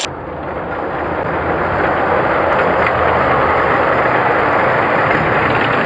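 Die-cast Hot Wheels toy cars rolling down a multi-lane orange plastic track, a steady rolling rumble, with a few light clicks near the end.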